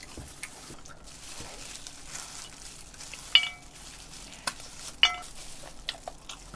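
Fried chicken being picked apart and chewed, a faint crackle, with two sharp ringing clinks on a ceramic plate, a little past three seconds in and again at about five seconds.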